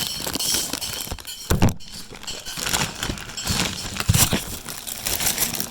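Plastic packaging rustling and small hard accessories clattering as a bag of TV remotes and cables is opened and unpacked, with a couple of louder knocks.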